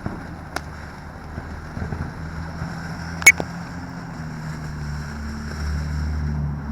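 One sharp, loud firework pop about three seconds in, after a fainter click, over a steady low engine-like hum.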